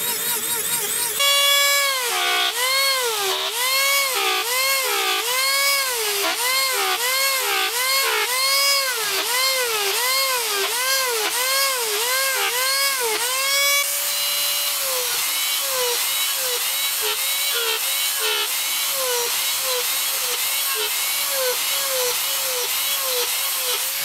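A handheld rotary tool fitted with a concave eye cutter is running at high speed with a steady whine. Its pitch sags and recovers about once a second as the cutter is pressed into the wood and lifted. Later the dips come shorter and about twice as fast.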